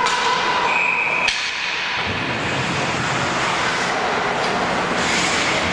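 Ice hockey rink game noise: a steady wash of skates scraping and carving on the ice, with a single sharp knock about a second in, typical of a puck or stick striking. A held tone with overtones is heard at the start and fades out before the knock.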